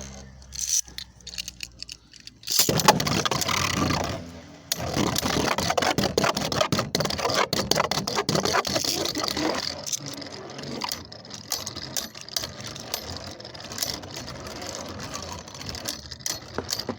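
Beyblade spinning tops in a plastic stadium: a sharp start about two and a half seconds in, then continuous whirring and fast clattering as the tops spin, scrape and knock against each other and the stadium walls.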